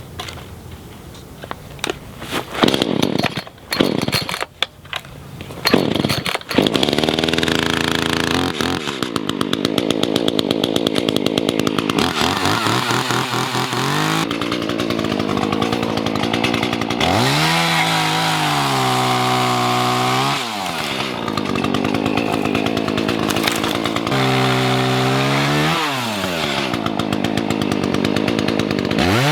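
Chainsaw cutting mesquite branches. A few loud knocks come in the first seconds, then from about six seconds in the saw runs continuously. Its pitch drops and climbs back several times as the throttle is let off and opened again.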